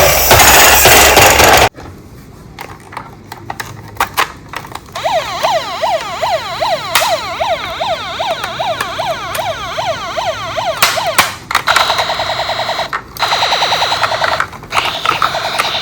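Electronic sirens of toy emergency vehicles. A loud wailing siren cuts off suddenly just under two seconds in. After a few clicks, a fast up-and-down yelp siren sounds for about six seconds, followed by two bursts of a harsher, buzzing alarm tone near the end.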